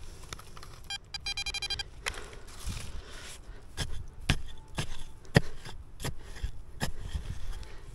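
A digging tool striking into the ground again and again, one sharp hit about every half second to a second, most of them in the second half. About a second in there is a short pulsing electronic beep.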